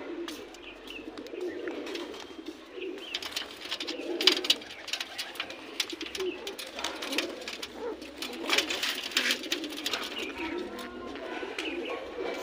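Punjabi patte pigeons cooing, low rolling coos repeating throughout, mixed with many small sharp clicks and taps.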